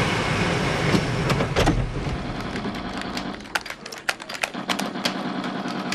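Car engine and road noise as the car drives off. Then a run of irregular single gunshots from a Halo video game, starting about three and a half seconds in.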